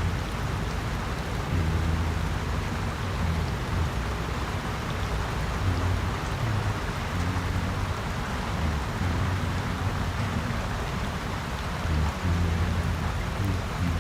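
Steady rain, with a low rumble that swells and fades underneath it every few seconds.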